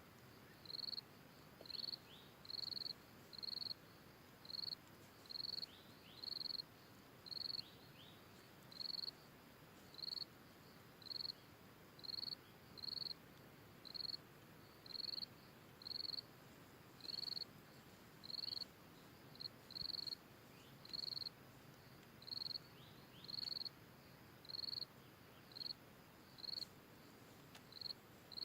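An insect chirping in a steady rhythm, about one and a half short high chirps a second, over faint forest background with a few soft falling whistles.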